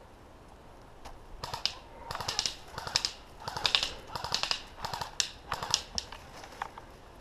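Footsteps crunching through dry twigs and brush, with crackling and snapping in clusters about every two-thirds of a second, starting about a second and a half in.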